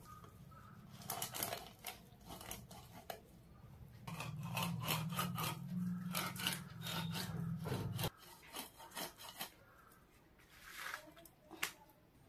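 A fish being cut into pieces against an upright curved blade on a banana leaf: a run of short scraping and slicing strokes. A low hum runs under the first two-thirds and cuts off suddenly.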